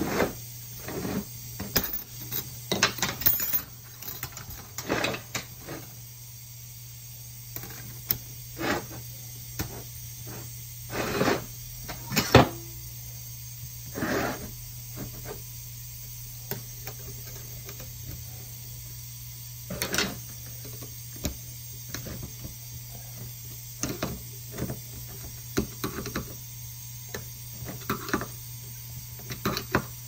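Irregular clicks and scrapes of a steel pick and screwdriver against a 6F35 transmission's aluminium center support and its wire snap rings, over a steady low hum.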